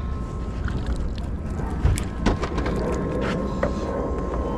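Wind rumble and water noise on a small fishing boat, with a few sharp clicks and knocks about two seconds in and again a little after three seconds.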